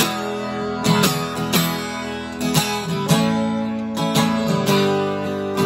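Acoustic guitar being strummed in a steady rhythm, a chord stroke about every half second with the notes ringing on. It starts suddenly with a strum.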